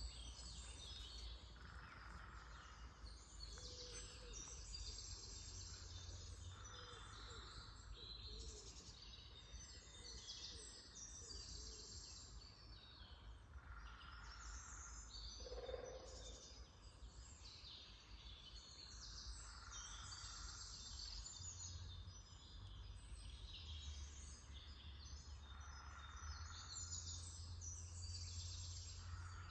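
Early-spring forest birdsong: several birds chirping and singing at once, faint, with a softer call repeating about every six seconds over a low steady rumble.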